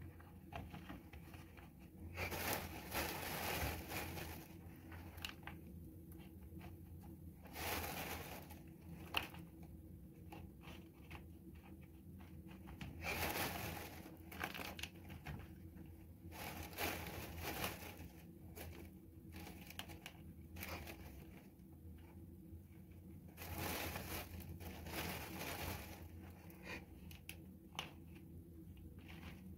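A black plastic bag crinkling, with gritty potting mix of expanded clay pellets and peat, as a hand scoops the mix out of the bag and presses it into a pot. This comes in several bursts a few seconds apart.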